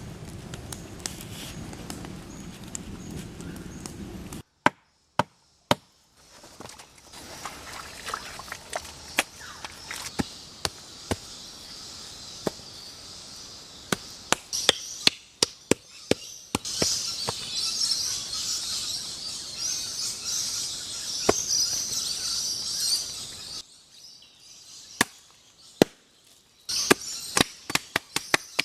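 Wood being chopped with a hand tool: a series of sharp, irregular strikes. A steady hissing noise runs for several seconds in the middle.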